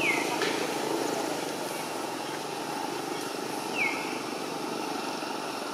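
Two short, high squeaks that glide downward, one at the start and another about four seconds later, typical of a baby monkey's cry, over a steady low drone.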